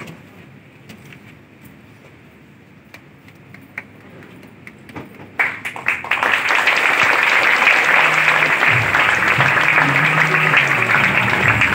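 Audience applause breaks out about halfway through and stays loud and steady, with music and a low bass line coming in under it a couple of seconds later.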